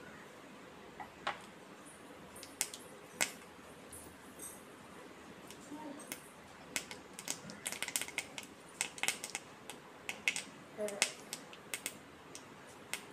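Hot oil crackling and spitting in a small miniature kadai as food fries in it: irregular sharp pops, thicker and quicker through the second half.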